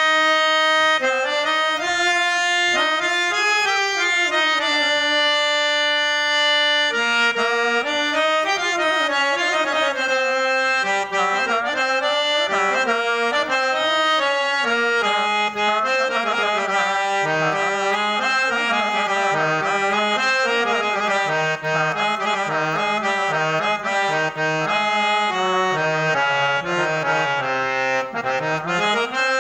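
Harmonium playing a solo melody in raga Hindustani Todi. Long held notes come first, then quicker runs of notes with ornamented turns (gamakas), and the line works down into the lower register near the end.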